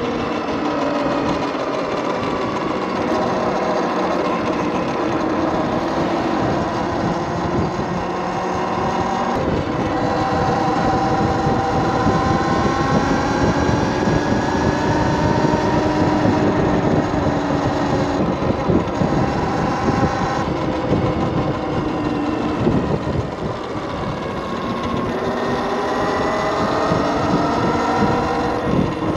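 Talaria Sting TL4000 electric motorbike under way: the motor's whine glides up and down with speed, easing off about three-quarters of the way through and then rising again. Wind rushes on the microphone and the tyres run on the road underneath.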